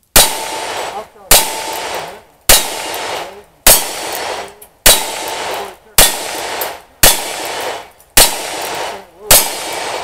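Single-action revolver fired in a steady string of nine shots, about one a second, each crack trailing off over most of a second.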